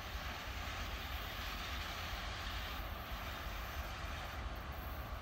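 Steady distant drone of an approaching TEP70BS diesel passenger locomotive, still far off, over a low, uneven rumble.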